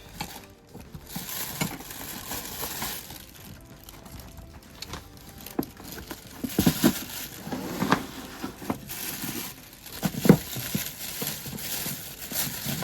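Packaging crinkling and rustling as bicycle brake parts are handled and taken out, with a few light knocks along the way.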